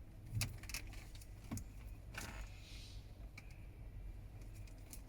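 Plastic dashboard trim being pried and worked loose: a handful of sharp clicks and taps from the clips and panel, with a short scraping rustle about two seconds in.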